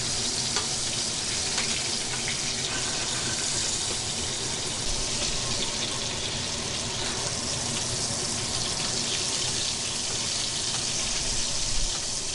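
Butter and oil sizzling steadily in a frying pan around sea robin fillets, with a few light clicks from the basting spoon in the first couple of seconds.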